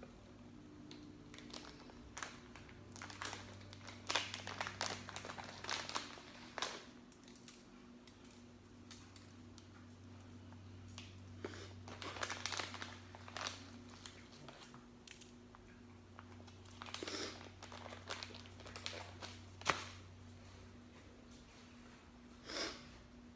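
Aluminium foil crinkling and crumpling in several separate bursts as it is folded, over a low steady hum.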